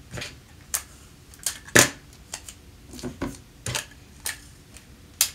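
Scotch tape being pulled and torn off into pieces: a run of about ten sharp snaps and clicks at irregular intervals, the loudest about two seconds in.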